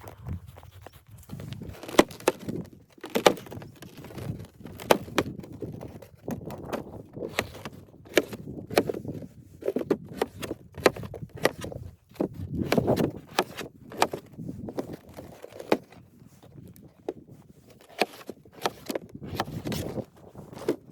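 Irregular knocks and clicks, several a second, with rustling in between, as of things being handled or someone moving about.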